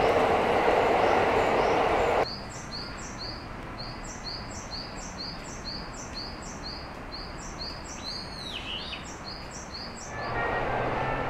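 Tram running noise, a steady loud rush that cuts off suddenly about two seconds in. A quieter stretch follows with a run of evenly repeated high chirps, between two and three a second, and one lower swooping call near the end. A passing car's engine comes in about ten seconds in.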